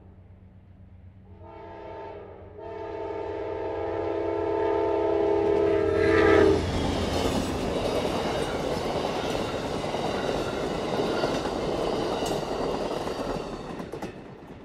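Locomotive horn of an Amtrak passenger train blowing for a grade crossing: a short blast about a second in, then a long blast that cuts off suddenly about six and a half seconds in. The passenger cars then roll over the crossing with a steady rumble and clatter of wheels on rail, fading out near the end.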